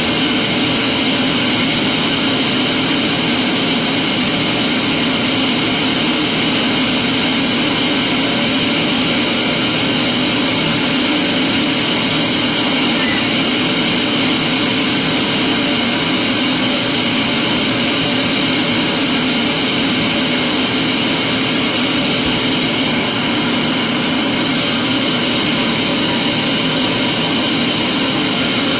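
Vacuum cleaner running steadily at constant speed, a loud even whine-and-rush with no change in pitch.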